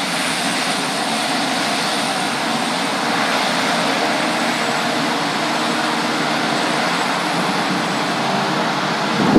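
Pilatus PC-21 trainer's turboprop engine and propeller running steadily at taxiing power. A brief break and a louder burst come at the very end.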